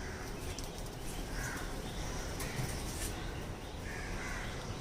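A few short, faint bird calls over a steady outdoor background noise.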